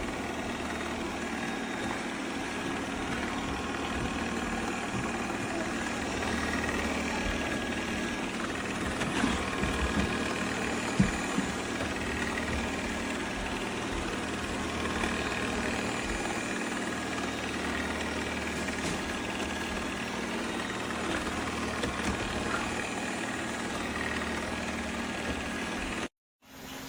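Shark ION R75 robot vacuum running, a steady motor hum with a faint whine, with a few short knocks about ten seconds in. The sound cuts off suddenly near the end.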